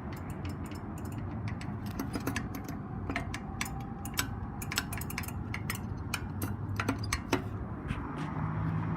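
Accessible pedestrian signal crosswalk button's locator speaker giving a run of sharp, uneven ticks over a steady low traffic hum.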